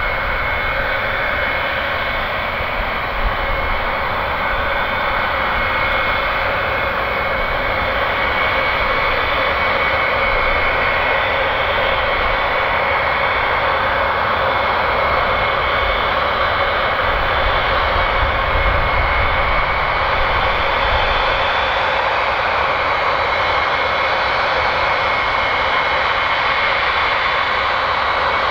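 Four TF33 turbofan engines of a Boeing E-3A Sentry running at low taxi power as it rolls slowly closer: a steady jet whine with several held high tones, growing slightly louder.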